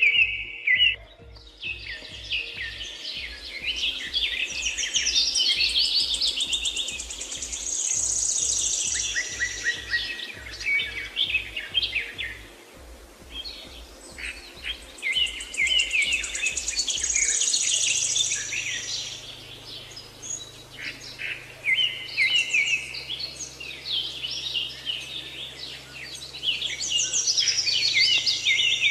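A dense chorus of songbirds chirping and trilling over one another, as in a morning birdsong soundtrack. A low hum runs underneath, pulsing quickly at first and then holding steady from a little past halfway.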